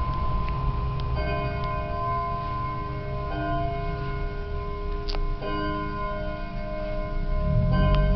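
Several antique pendulum wall clocks striking the hour out of step with each other, their ringing strikes starting at different moments and overlapping into a layered, sustained chime.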